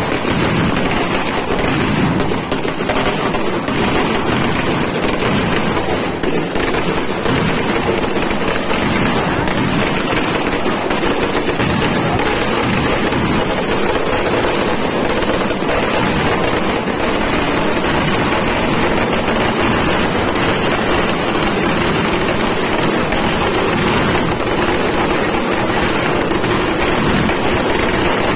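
Ground fireworks going off in a continuous, dense crackle of rapid bangs, steady and loud throughout.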